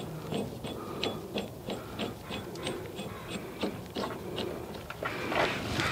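Socket ratchet clicking as it is worked on a rear brake caliper bolt: a run of light, sharp clicks, about three a second.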